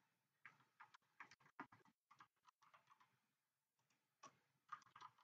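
Faint, irregular clicking from a computer keyboard and mouse, a quick run of clicks over the first three seconds, a pause, then a few more near the end, against near silence.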